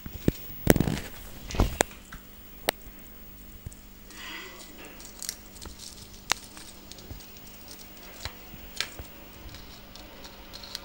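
Red-fronted kakariki working at a peanut in its shell: irregular sharp pecking taps and shell crackles, with a few louder knocks as the nut is banged against the countertop, the heaviest about a second in.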